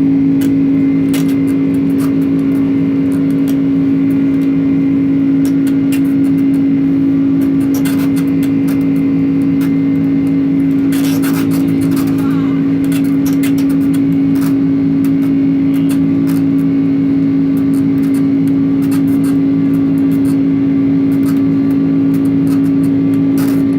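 Boeing 767-300ER's jet engines running with a steady, unchanging drone: a strong low hum with higher overtones, plus scattered faint clicks and rattles.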